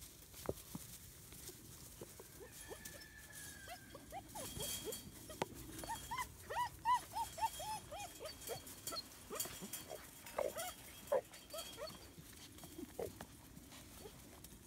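German Shepherd puppies, almost nine weeks old, yipping in quick short calls as they play-fight, with a dense run of yips about halfway through.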